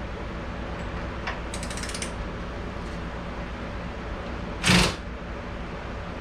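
Cordless ratchet working the door hinge bolts of a 1966 Ford Mustang, its battery running down: a quick run of clicks about one and a half seconds in, then one short louder burst near the end, over a steady hum from a shop fan.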